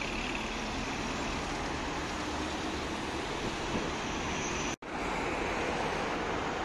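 Steady noise of dense multi-lane road traffic, cars and buses passing below, cut off for a split second almost five seconds in.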